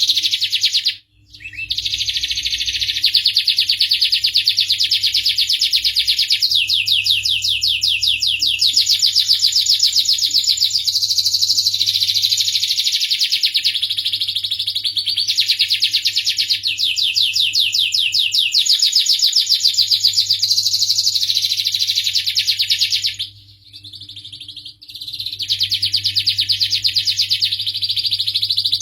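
Domestic canary singing long, rapid trills and rolls one after another, with a brief pause about a second in and a longer one near the two-thirds mark.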